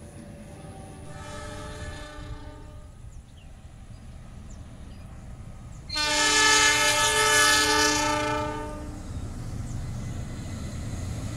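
Diesel locomotive air horn sounding two steady blasts: a softer one about a second in, lasting under two seconds, then a much louder one about six seconds in, lasting about three seconds. Afterwards the low rumble of the approaching locomotive grows.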